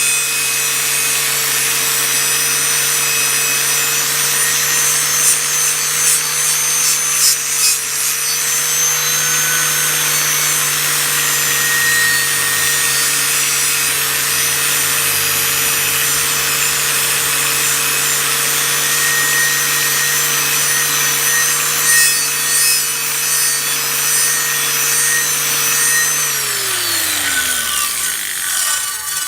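Power-tool wire wheel running steadily against a rusty steel machete blade, scouring off rust and scale with a harsh hiss over a steady motor hum. Near the end the motor is switched off and its pitch falls as it spins down.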